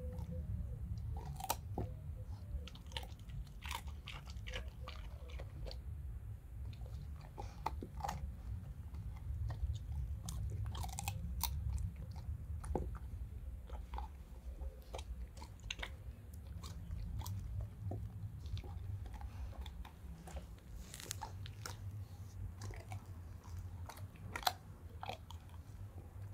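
A dog chewing a raw carrot, with irregular crunches and bites, over a steady low rumble.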